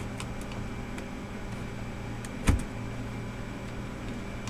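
A screwdriver prying a netbook's keyboard out from under its plastic retaining tabs: a few faint ticks and one sharp click about two and a half seconds in, over a steady low hum.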